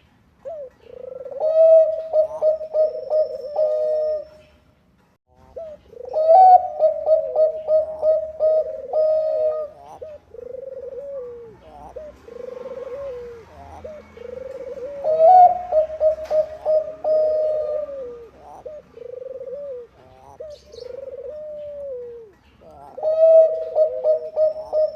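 Bangkok-type zebra dove (perkutut) cooing: loud phrases of quick, rippling staccato coos, each a few seconds long, come four times, with softer, lower coos in between.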